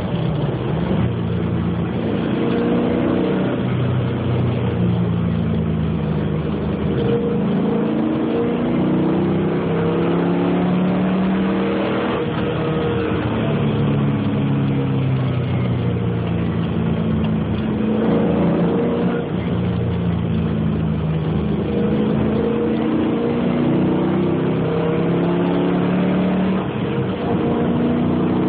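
Camaro SS's LS1 5.7-litre V8 pulling hard at around 3,300 to 4,100 rpm, its pitch rising and falling as the throttle opens and closes, heard from inside the cabin over tyre and road noise.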